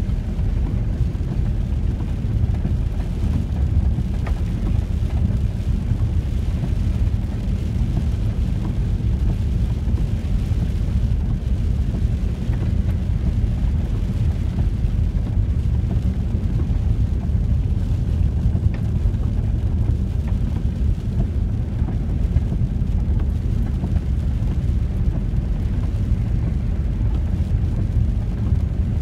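Steady in-cabin running noise of a VW T4 campervan on the move: engine and tyres on a wet road, mostly a deep, even rumble.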